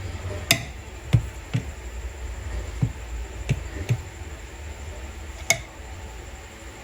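Irregular clicks and light knocks of a utensil against a dish while canned mackerel is scraped clean, about seven taps, two of them sharper than the rest, over a low steady hum.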